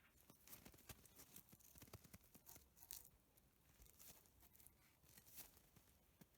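Near silence with faint scratching and rustling and scattered small clicks.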